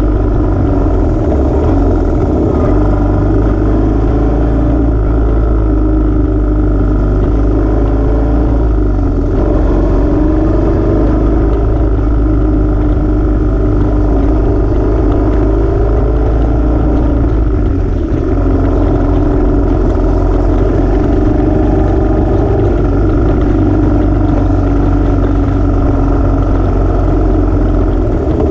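Royal Enfield motorcycle ridden at steady road speed, its engine running without a break, heard from on the bike with wind rush over the microphone.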